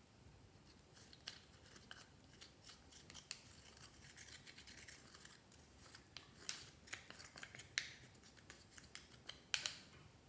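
Clear slime being worked by hand, giving quiet, irregular sticky clicks and crackles with a few louder pops in the second half.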